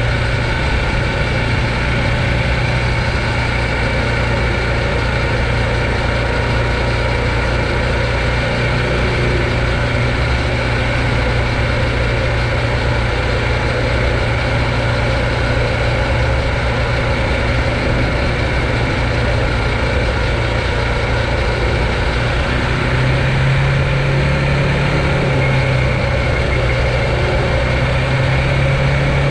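Steady riding noise from an e-bike's drive motor, tyres and wind, with a constant low hum and no break or change in level.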